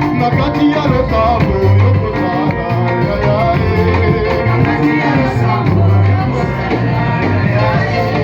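Upbeat praise music playing loud, with a heavy, repeating bass line and singing over it.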